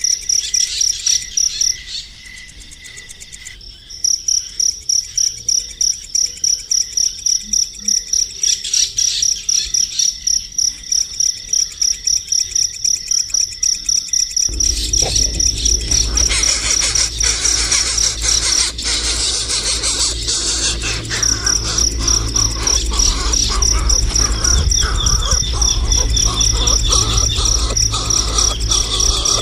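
Rapid, high-pitched pulsed chirping, many pulses a second, pausing briefly twice. About halfway through a low rumble joins in underneath.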